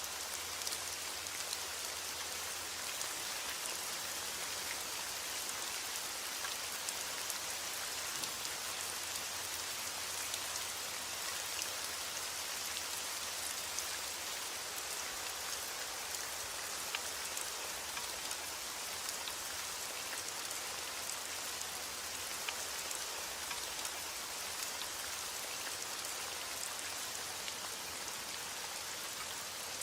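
Steady heavy rain falling: a dense, even hiss with single drops ticking through it.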